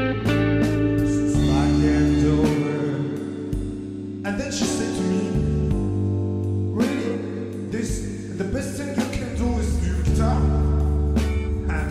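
Background music: a blues-rock song with guitar over a steady bass line.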